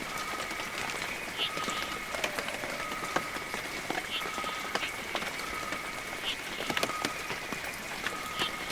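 Heavy rain falling, with many close drops striking sharply. Behind it runs a steady high-pitched drone, and a short call repeats about once a second.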